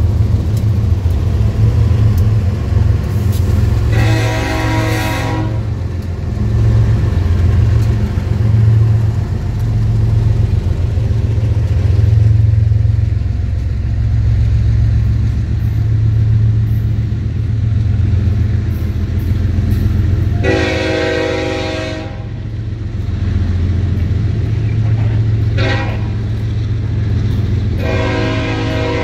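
BNSF double-stack container train passing close by, its locomotives and then loaded well cars making a steady low rumble. A locomotive horn sounds several times over it: a blast about 4 s in, a longer one around 20 s, a short toot near 26 s, and another near the end.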